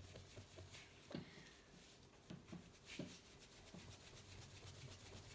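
Faint cloth rubbing polish into the painted body of a small die-cast toy car, in irregular strokes with a few light ticks of the metal casting being handled.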